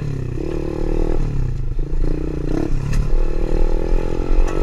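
Tao Tao DB24 110cc four-stroke single-cylinder pit bike engine running under the rider, its revs rising and easing off a couple of times. A scraping comes through: the skid plate under the engine rubbing the front tyre as the front forks compress.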